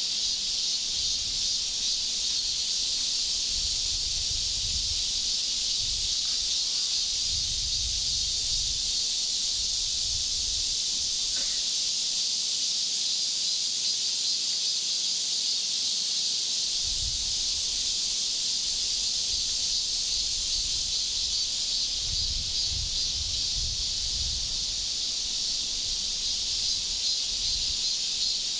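Steady buzzing chorus of insects outdoors, with a faster pulsing, higher trill that comes and goes. Low rumbles are heard now and then.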